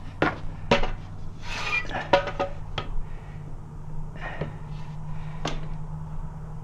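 Handling clunks from a motorcycle wheel and a hinged steel bead-breaker bar on a wooden box while the tire bead is being broken: about five sharp knocks, spread unevenly.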